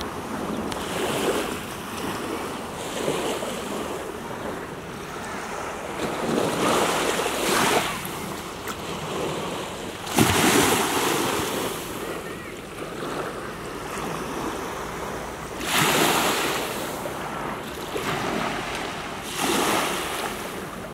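Small waves washing onto a sandy shore, the surf swelling every few seconds, with wind buffeting the microphone.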